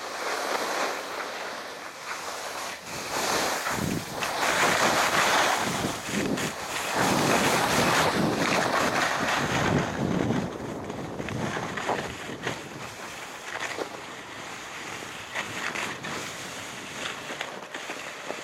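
Wind rushing over the microphone of a camera carried downhill on skis, mixed with the hiss and scrape of skis sliding over snow. The rushing surges strongest through the middle and eases off near the end.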